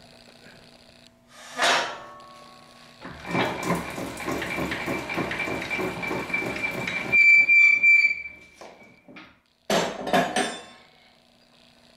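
A stainless-steel 50-litre planetary mixer being handled with its motor off. There is one metal clank, then several seconds of rapid metallic clattering with a thin high whine as the bowl-lift handwheel is turned. Two more sharp metal clanks come near the end as an attachment is fitted onto the agitator shaft.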